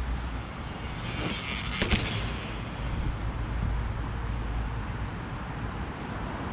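Mountain bike ridden over a small dirt jump: a steady low rumble of wind and tyres, with a few sharp knocks about one to two seconds in, the loudest near two seconds.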